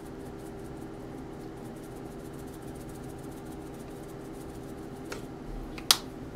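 Ground venison frying in a skillet, with a steady hum and a faint fine crackle. Near the end come two sharp knocks, the second much louder.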